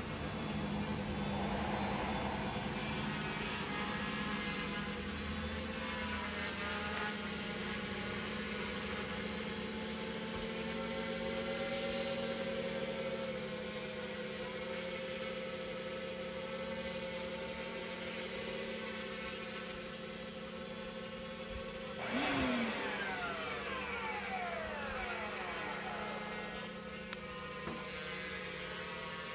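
Quadcopter with Turnigy brushless motors flying with a hanging payload: a steady propeller whine and hum whose pitch drifts slightly as it holds and manoeuvres, with one brief louder swell about three-quarters of the way through.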